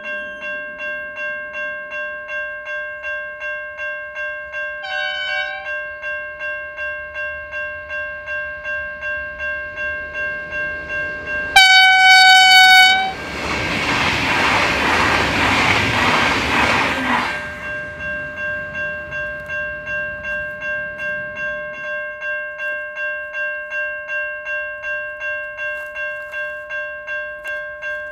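Level crossing bells ringing steadily at about two strokes a second. A train horn gives a short toot about five seconds in and a longer, louder blast a little before halfway, then the train rushes past for about four seconds.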